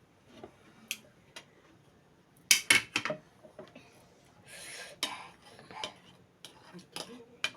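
Cutlery clinking and scraping against a plate during eating: a string of sharp separate clicks, loudest about two and a half seconds in, with a short scrape around five seconds in.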